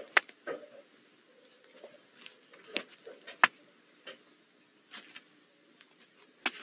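Irregular sharp clicks and scratches, about ten of them, as an owl shifts on the wood shavings inside its nest box. The loudest come just after the start and about three and a half seconds in, over a faint steady hum.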